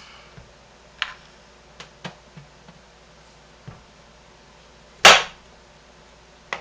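Kitchen knife cutting through a block of hard homemade lye soap on a plastic cutting board. A few light knocks, then one sharp, loud knock about five seconds in as the blade comes down on the board.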